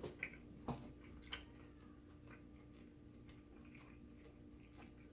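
Near silence: faint room hum with two soft clicks in the first second and a few fainter, irregular ticks after.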